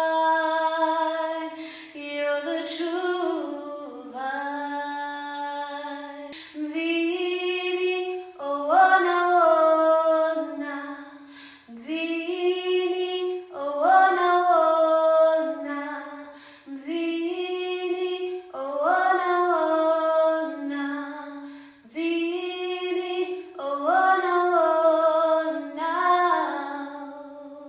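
A woman singing a slow worship melody unaccompanied, in phrases of two to four seconds with short breaks between, fading near the end.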